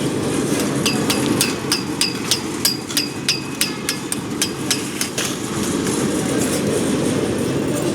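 Concrete mixer machine running with a steady low rumble. From about a second in until about five seconds, metal is struck in a regular run of sharp ringing clinks, about three a second.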